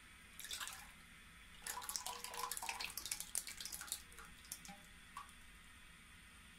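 Melted ghee poured from a steel container into a non-stick karahi: a short splash, then a denser run of splashing and gurgling as the container is tipped over, thinning to a few scattered drips as it empties.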